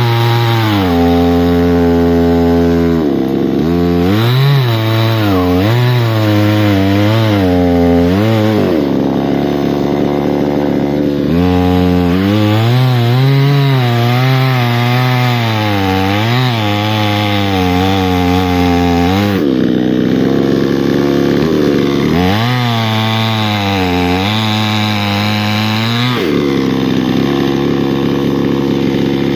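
Two-stroke chainsaw running at high revs through three stretches of cutting. In each its pitch repeatedly sags and recovers as the chain bites into the wood, with steady revving in between.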